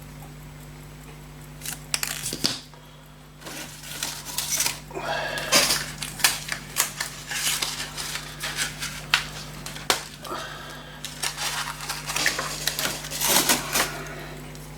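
Small metal parts and tools handled on a workbench: irregular clicks, taps and light scrapes, over a steady low hum.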